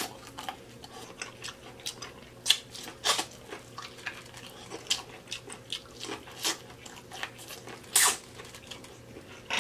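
Close-miked mukbang eating: wet smacking, sucking and chewing as a sauce-soaked piece of seafood boil is bitten and eaten by hand, with scattered clicks and a louder smack about eight seconds in.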